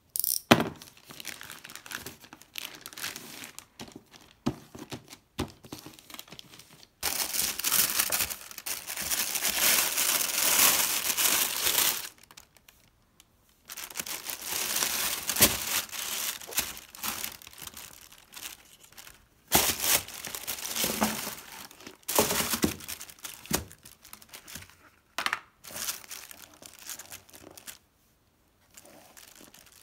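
Plastic packaging of a parcel being opened: a utility knife slitting a plastic mailer bag, then plastic wrapping crinkling, rustling and tearing in several long bursts with short pauses as it is pulled apart.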